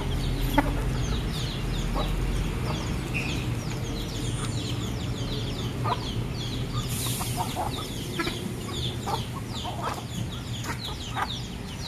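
Backyard chickens clucking while they feed, over a constant chatter of quick, high chirps.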